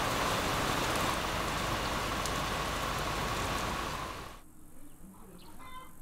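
Heavy rain pouring down, a steady loud hiss, cutting off suddenly about four seconds in to a much quieter outdoor background.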